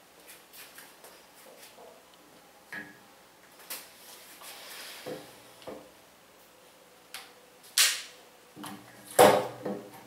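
Workbench handling sounds: scattered light knocks and taps as a flattened copper tube piece and a wooden block are set in place under an electric drill. Two louder knocks near the end, the last the loudest, with a brief low hum and short ringing after it.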